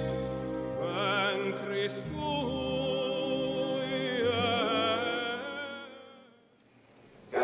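Operatic solo singing with wide vibrato over sustained instrumental accompaniment, fading out near the end.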